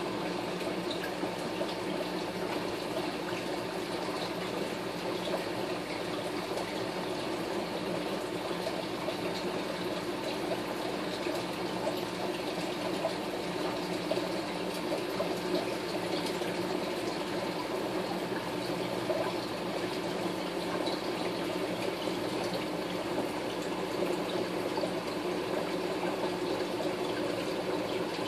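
Aquarium filtration running: a steady wash of running, bubbling water with a low steady hum underneath.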